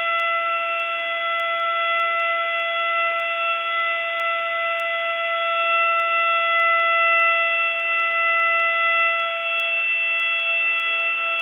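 Planet Fitness lunk alarm howling: one steady pitched tone held without a break.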